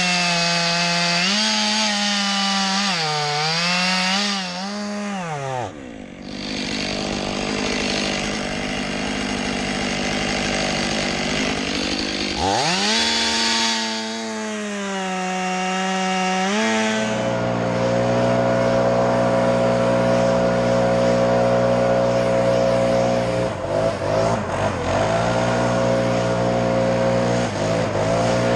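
Two-stroke chainsaw cutting up a dead birch stem, revving hard in two spells with the pitch sagging as the bar bites into the wood and dropping back between cuts. After that a steady engine note runs on, dipping briefly twice.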